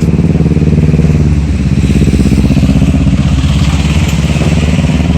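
Loud motorcycle engine running steadily, the Benelli TNT300's parallel twin, its pitch wavering slightly without a big rev.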